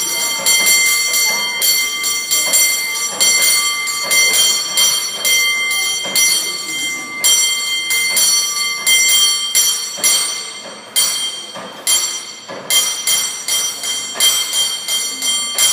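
Cable car bell struck rapidly by hand in a quick, uneven rhythm, its clanging tone ringing on between strokes, with a short lull about eleven seconds in.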